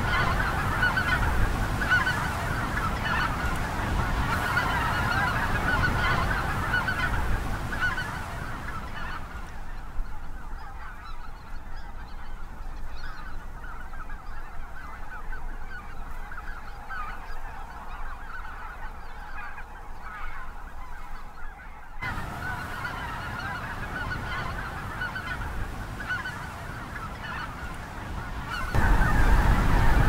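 Large flocks of migrating snow geese and other geese calling together in a dense, overlapping chorus of honks. The calling thins out and grows quieter partway through, then swells again. Near the end a louder stretch comes in with a low rumble under the calls.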